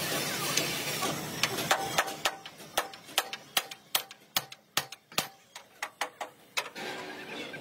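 Hammers striking a steel punch held against a truck's steel chassis rail: a run of about fifteen sharp, ringing metal clanks, two to three a second. A steady hiss, from the gas heating torch, is heard before the strikes begin and again after they stop.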